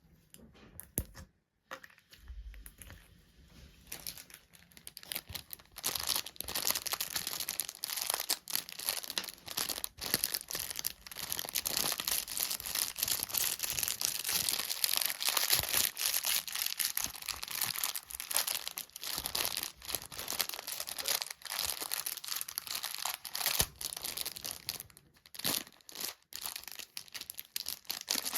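Close-miked crackling and crunching of a material being crushed or torn by hand, an ASMR trigger: scattered clicks at first, becoming a dense, continuous crackle about six seconds in.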